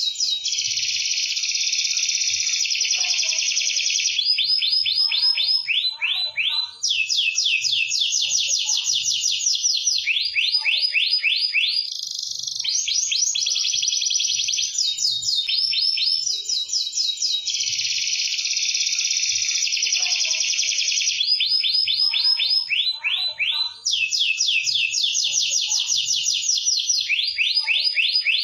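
Domestic canary singing without pause: long rolling trills of rapidly repeated high notes, switching to a new trill every second or two.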